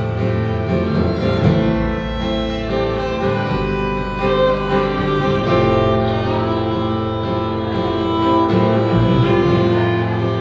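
Instrumental music led by bowed strings, with violin playing long held notes over a low sustained bass and no singing.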